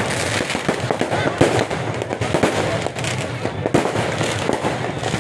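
Fireworks going off without a break: a dense run of overlapping bangs and crackles.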